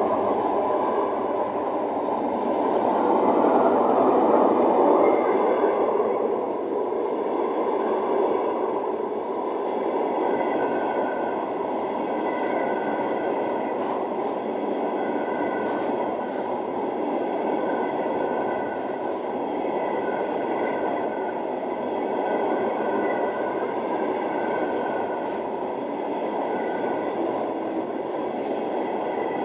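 A train rolling past on the rails: a steady rumble of wheels running on track, with faint clicks now and then and a faint high tone that recurs about once a second in the second half.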